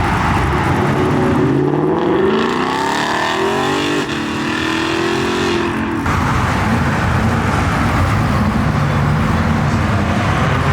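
Car engine accelerating, its pitch climbing over a few seconds, then easing off and running steadily at lower revs.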